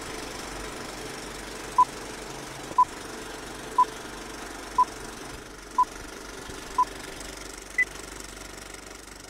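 Film countdown-leader beeps over the steady running clatter of an old film projector: six short beeps a second apart, then one higher beep a second after the last.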